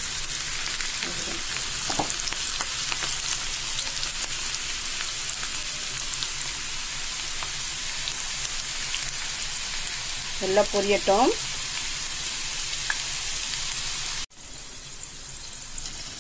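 Onion pakoda fritters deep-frying in hot oil in a kadai: a steady sizzling hiss with fine crackles. It drops suddenly quieter near the end.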